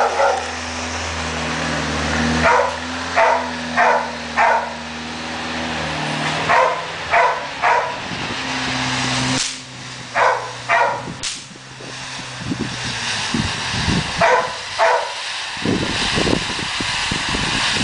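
A dog barking in short groups of two to four barks, over the steady hiss of ground fountain fireworks spraying sparks. A run of low pops comes in near the end.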